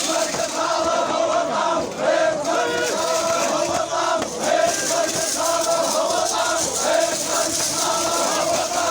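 Many men chanting together in an Iraqi tribal arada (hosa) war chant, a steady rhythmic group chant with no break.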